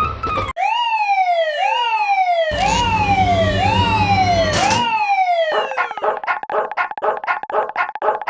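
Synthetic level-crossing alarm sounds: a siren-like wail that jumps up and slides down in pitch about once a second, with a low buzzing rumble under it midway. About five and a half seconds in it switches to a rapid, evenly repeating bell-like ding, like a Japanese railway crossing bell.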